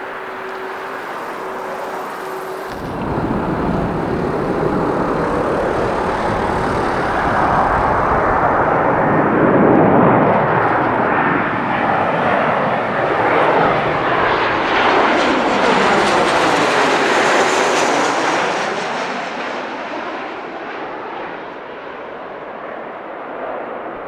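An airliner passing close by: its engine noise builds, peaks about halfway through, then fades away with a sweeping, shifting tone. A low wind rumble on the microphone sits under it.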